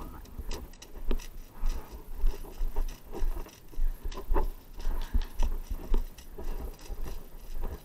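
Footsteps on gravel at walking pace, about two steps a second, with small clicks and rattles over a low rumble.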